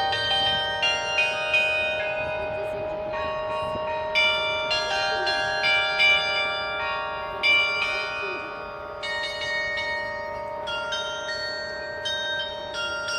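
A 95-bell carillon playing a melody: bells struck one after another, several notes a second at times, each note ringing on and overlapping the next under a long-sustained low bell.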